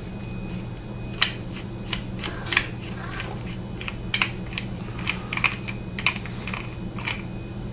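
Metal flashlight's threaded tail cap being unscrewed by hand: irregular clicks and scrapes of the threads and handling, over a steady low hum.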